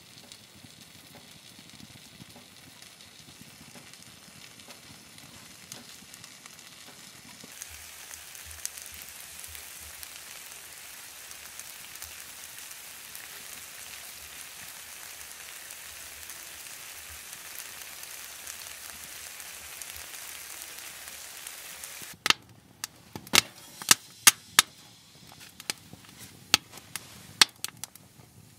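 A steady high hiss, then near the end a wood fire crackling in a Winnerwell Fastfold woodstove, with a run of sharp, loud pops.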